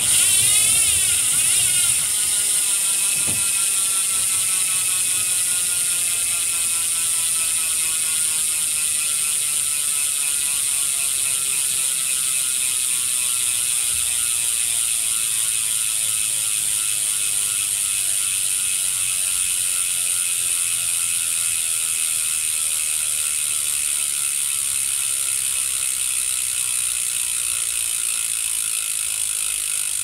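Stan's NoTubes NEO rear hub freewheeling on a coasting bicycle wheel: its freehub ratchet clicks in a fast, even buzz that slowly drops in pitch as the wheel slows.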